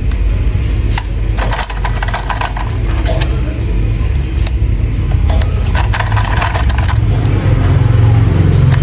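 Battery-powered plastic toy train running: a steady low motor hum, with sharp plastic clicks and rattles at about one, two and six seconds in.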